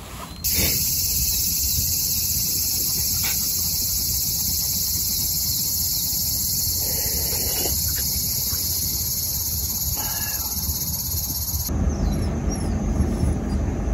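Cicadas droning in a steady, high-pitched chorus that cuts off suddenly near the end, giving way to a low outdoor rumble.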